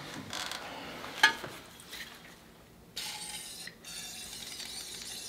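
Small metal clicks and scraping as a hose clamp and rubber fuel line are fitted onto a Jeep's fuel pump, with one sharp click about a second in. About three seconds in the sound changes to a low steady hiss.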